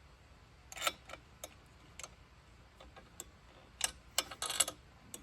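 Irregular sharp clicks and knocks, with a quick rattle of them a little after four seconds, from hands adjusting and clamping the height setting of an Alaskan chainsaw mill.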